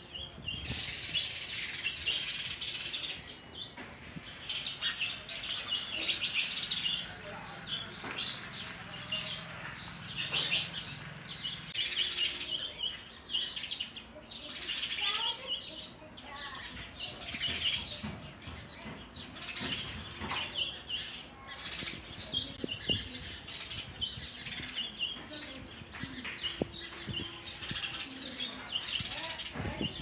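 Sparrow nestlings begging for food, giving high-pitched cheeps in repeated bouts as the parent feeds them.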